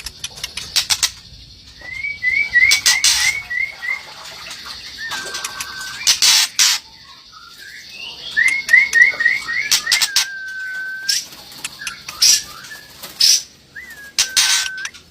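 A bird calling: quick runs of short rising notes, about eight in two seconds, alternating with long level whistles lasting about a second, among several loud sharp rustling bursts.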